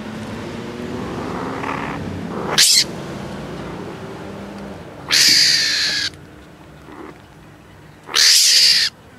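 Baby mongoose giving harsh, screeching protest calls three times: a short cry, then two longer ones of about a second each, the loudest sounds present.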